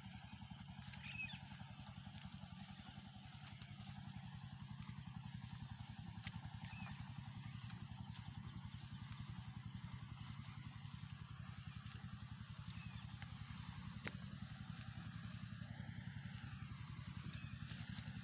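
Quiet outdoor field ambience: a steady low rumble with a thin, steady high-pitched hiss above it, and a few faint short chirps and small clicks.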